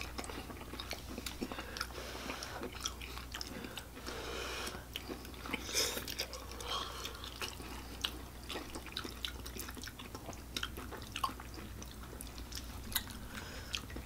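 People eating spaghetti squash: close-miked chewing and mouth sounds, with scattered small clicks and taps of forks in the squash shells.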